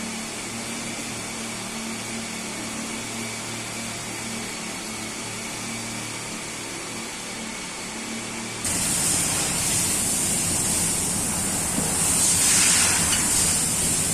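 Steady machinery hum. About eight and a half seconds in it switches abruptly to louder running noise with a strong high hiss.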